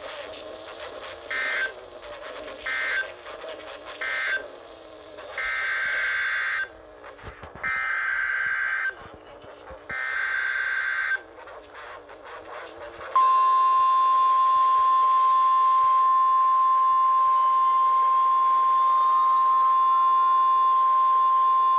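NOAA Weather Radio alert tones over a radio receiver. First come three short bursts of SAME data tones, the end-of-message code that closes a tornado warning. Then three longer SAME header bursts announce the next alert, and about two thirds of the way in the steady single-pitch weather radio warning alarm tone (1050 Hz) starts and holds for about eight seconds.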